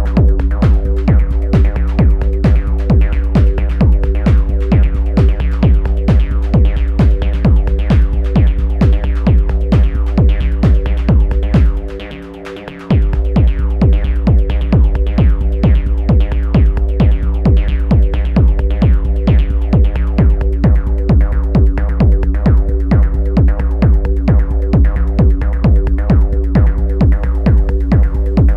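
Improvised techno from an Elektron Analog Rytm drum machine: a steady kick-drum pulse under sustained low synth tones. The kick drops out for about a second near the middle, then comes back.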